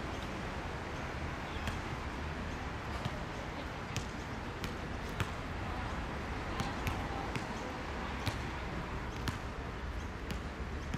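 Steady low background noise with scattered sharp clicks, about one or two a second.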